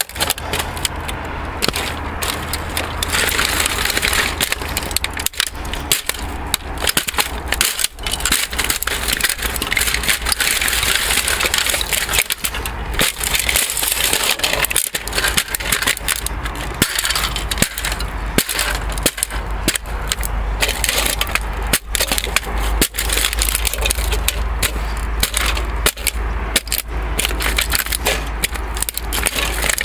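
Plastic casing and internal parts of a fax machine cracking, snapping and crunching under repeated boot stomps, in a dense stream of sharp breaks.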